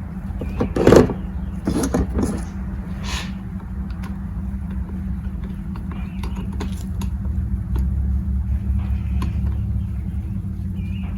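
Small metal clicks and handling noises as nuts are fitted onto the carburetor studs of a string trimmer, with a louder knock about a second in. A steady low hum runs underneath.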